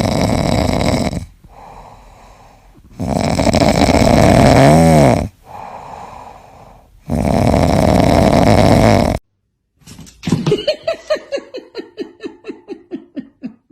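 Loud snoring: three long noisy breaths of about two seconds each, with quieter stretches between them. After a short silence near the end comes a quick run of short pulses, about seven a second, falling in pitch.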